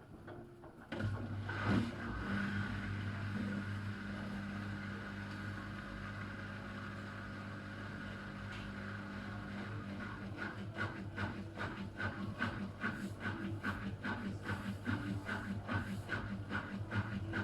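Miele W1 washing machine before its spin: a steady mechanical hum starts about a second in, and from about ten seconds it turns into a rhythmic pulsing, roughly three beats a second. This is the strange pre-spin noise that the service put down to the machine not standing level or not being used properly.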